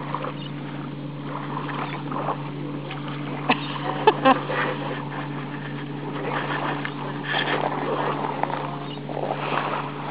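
A steady low hum runs through a noisy background, with three short sharp clicks a little before the middle.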